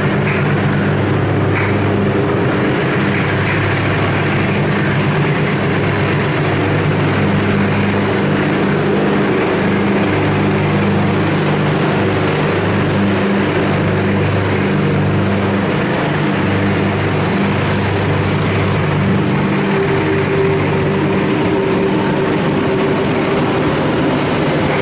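CC201 diesel-electric locomotive's engine running with a steady low drone as it pulls a passenger train slowly out of the station, with the rolling noise of the carriages passing.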